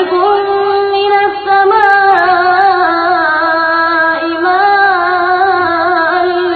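Quran recitation: one voice chanting a long, drawn-out melodic phrase, its held notes wavering in ornamented turns, with only brief breaks.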